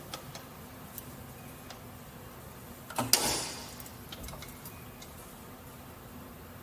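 Metal-turning lathe running with a steady low hum and scattered light ticks. About three seconds in comes a single sudden loud burst of noise that fades over about a second.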